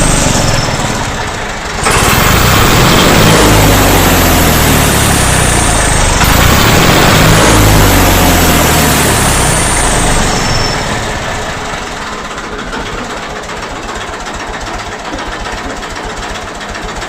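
Massey Ferguson 135 tractor engine revving through its original UK-made silencer, which gives a whistling exhaust note. It is held at high revs for about eight seconds, then drops back about ten seconds in to a steady idle.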